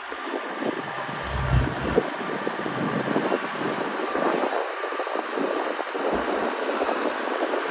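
Heavy earthmoving machinery working: a continuous rattling, crackling noise of machine and soil, with two brief low buffets of wind on the microphone.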